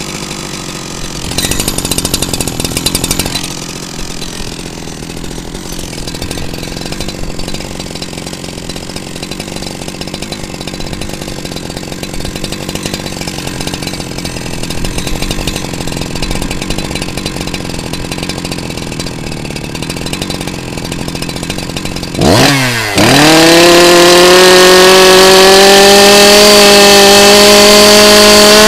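Zimani 372XP PRO two-stroke chainsaw idling, with a short rise in revs about two seconds in. Near the end the revs jump to full throttle and hold steady at a high, even pitch. The saw is running unloaded on its factory carburettor settings while its top rpm is read on a tachometer.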